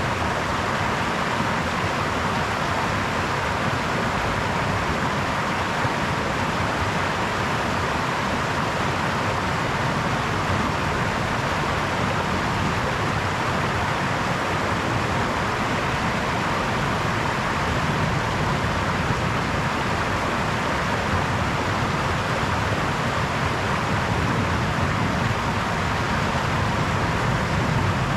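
Brook flowing: a steady, unbroken rush of running water.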